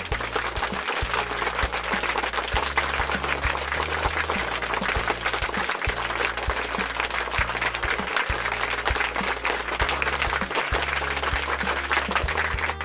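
Background music with a steady bass line, overlaid by dense applause that starts suddenly and stops near the end.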